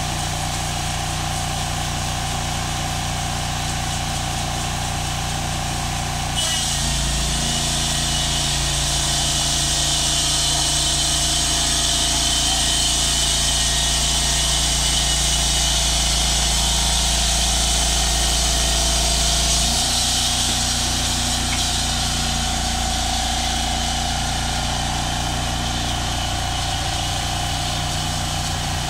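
Portable band sawmill's engine running steadily. About six seconds in, the band blade engages and a loud, high hissing whir joins, and the engine's note changes and holds under load as the blade runs through a squared log. Near twenty seconds the engine note returns to its earlier pitch while the blade keeps running.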